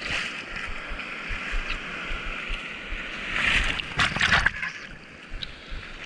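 Ocean whitewash rushing and sloshing around a surfboard, heard from a camera mounted on the board. About three and a half seconds in, a broken wave washes over the board and camera in a burst of loud splashing, then the rush settles to a quieter hiss of foam.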